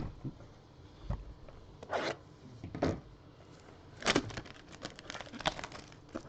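Trading-card box packaging being handled and opened: a knock, two short rubbing scrapes, then quick crinkling and tearing of plastic wrap from about four seconds in.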